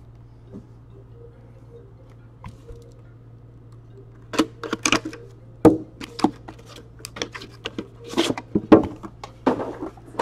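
Hands opening a cardboard hockey card box: crinkly rustling and sharp scrapes and clicks as the flaps are pulled open and the box inside is handled, starting about four seconds in, over a low steady hum.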